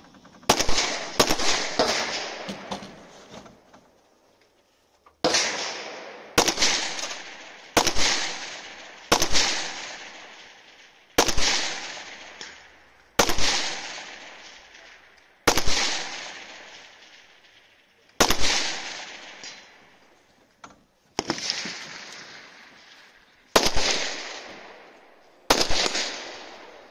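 Rifle shots from a .223 AR-15-style competition rifle (Savage Arms MSR 15 Competition): a quick string of shots in the first few seconds, then single aimed shots every second or two, each trailing off in a long echo.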